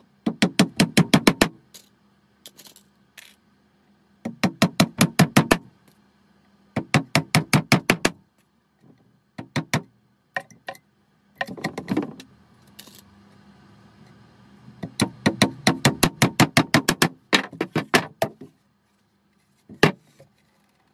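Claw hammer tapping nails into a wooden beehive super box: about half a dozen runs of quick, sharp taps, several strikes a second, each run lasting a second or so, the longest near the end, then a single blow.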